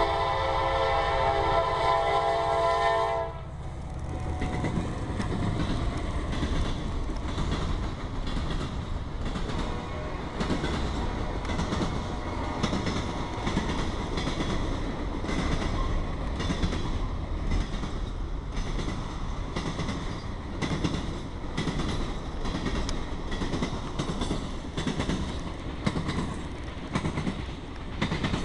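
EMD SD70MAC diesel locomotive's air horn sounding a loud chord that cuts off about three seconds in. Then the freight train rolls past with a steady rumble and rhythmic clickety-clack of wheels over the rail joints.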